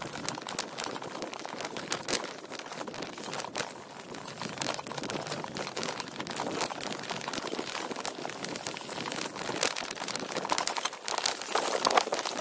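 Gravel bike rolling over a rough dirt singletrack: a steady crackle and crunch of tyres on the dirt, with tall dry grass swishing against the handlebars and bike. Wind on the microphone builds near the end.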